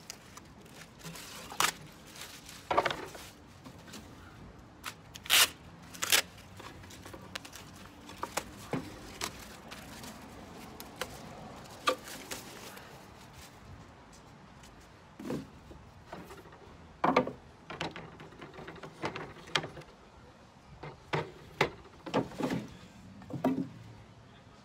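Plastic wrapping being pulled off thin wooden panels, with crinkling and scattered sharp knocks and clatters as the light wooden panels are handled and set down on a plastic table.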